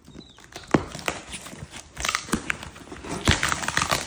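Cardboard shipping box being torn open and handled, with irregular rips, scrapes and crinkling and a few sharp clicks.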